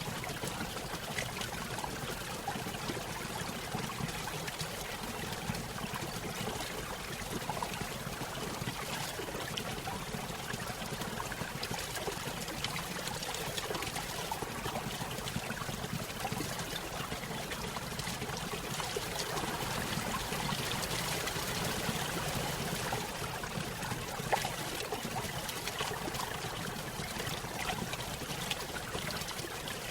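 A small stream running over a little waterfall, a steady trickling and splashing of water, slightly fuller about two-thirds of the way through.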